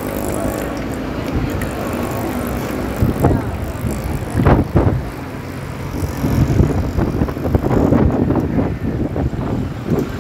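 Riding noise from a bicycle in motion: wind rushing over the microphone and the bicycle rattling over the road surface. There are louder knocks and gusts about three to five seconds in and again through the second half.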